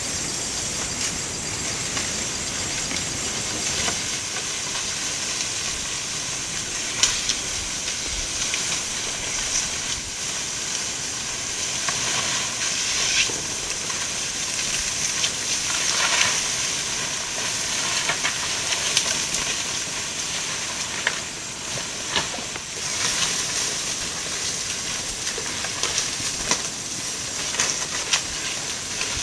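A steady high-pitched hiss from the forest, with scattered sharp cracks and snaps as a herd of Asian elephants feeds on bamboo.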